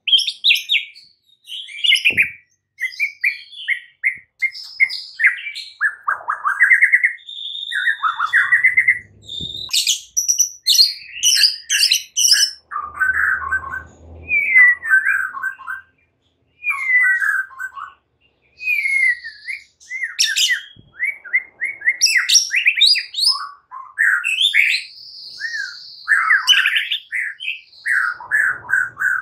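White-rumped shama singing a long, varied song of rapid chirps, whistled sweeps and fast repeated-note trills, broken by a couple of short pauses, in the combative style of a shama learning to fight.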